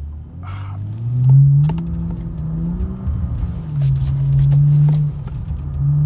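BMW 4 Series' N55 turbocharged inline-six heard from inside the cabin, revving up under acceleration: the pitch climbs about a second in, holds, dips, holds loudly again around four seconds in, then falls and starts to climb near the end. Scattered sharp ticks sound over the engine.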